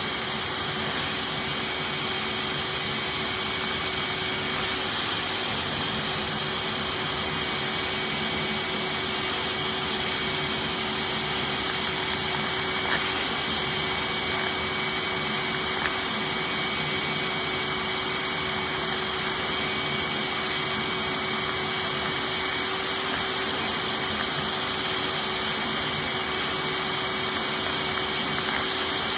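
Hoover wet/dry shop vac running steadily, its hose nozzle sucking dust out of a vacuum cleaner's pleated pre-motor filter. A constant motor whine over the rush of air, with no change in pitch.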